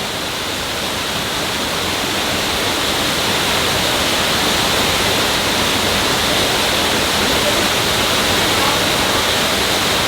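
Waterfall pouring steadily, a dense, even rush of falling water.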